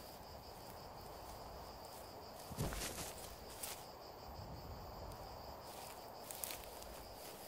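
Crickets chirping steadily and faintly, with a soft knock about two and a half seconds in and a couple of lighter ones later.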